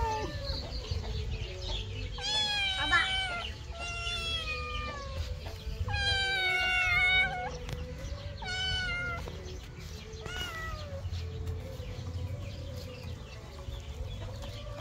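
Kitten meowing repeatedly: about six high, wavering meows a second or two apart, the longest and loudest about six seconds in, with a low steady rumble underneath.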